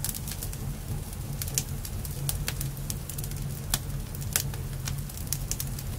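Wood campfire burning: irregular sharp pops and crackles over a steady low rumble of the flames.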